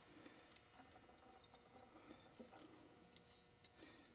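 Near silence, with a few faint, scattered small clicks and soft handling rustles.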